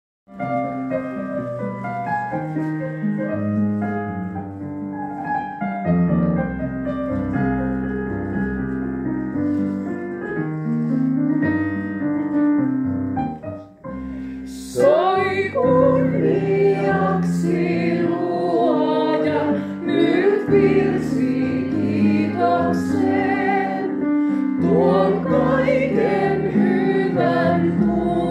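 Hymn played on a Roland FP-80 digital piano: a solo piano introduction, then about halfway through voices begin singing over the accompaniment, a woman leading with the audience singing along.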